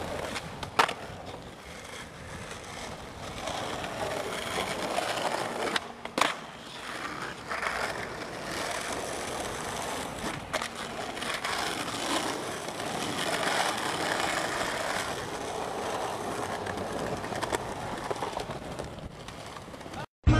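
A steady rough rolling or scraping noise with a few sharp clacks, about a second in, around six seconds in and near ten seconds in; it cuts off abruptly just before the end.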